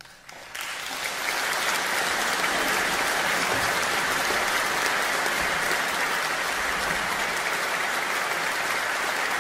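Audience applauding in a concert hall. The applause starts about half a second in, swells within a second, then holds as steady, dense clapping.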